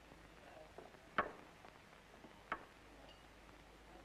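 Two sharp clicks a little over a second apart, the first the louder, over a faint steady hiss.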